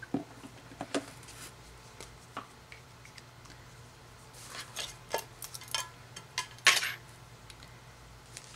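Scattered light clicks, taps and short rasping scrapes from handling cross-stitch work: needle, thread and fabric. The loudest is a brief scrape near seven seconds, over a faint steady hum.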